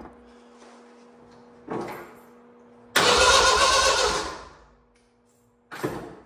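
Starter cranking the engine of a stretched Jeep CJ5 for about a second and a half, with a short burst before and another near the end. The engine turns over but never fires, because there is no ignition coil fitted and so no spark.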